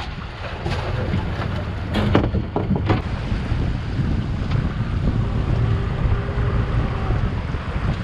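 Strong wind buffeting the microphone over the wash of the sea around a small boat, with a few sharp knocks in the first three seconds.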